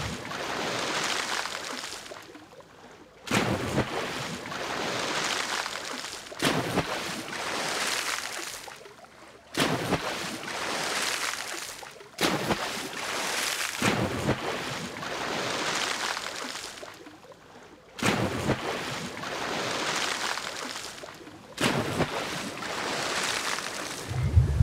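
Small waves washing in over sand, surge after surge every few seconds, each one starting abruptly as a rush of hiss that then fades away.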